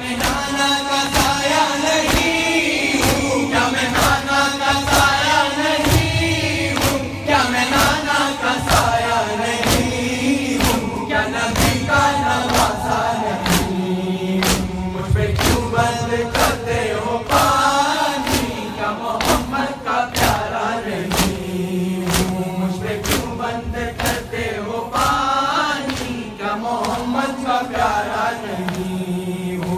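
Male voices chanting a Urdu noha together, with sharp rhythmic strikes of chest-beating (matam) about once a second.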